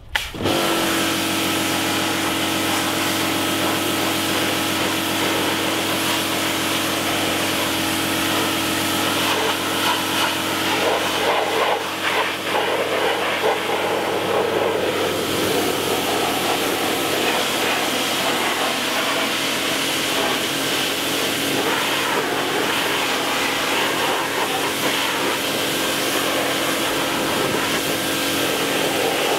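Pressure washer starting up and then running steadily: its motor hums under the hiss of the water jet hitting a boat's hull and outboard motor. The spray sounds rougher for a few seconds in the middle, as the jet strikes different surfaces.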